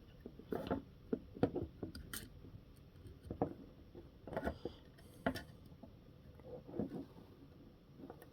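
Irregular small clicks and taps of hands working RC car parts while mounting a suspension link, a few knocks a second with short gaps.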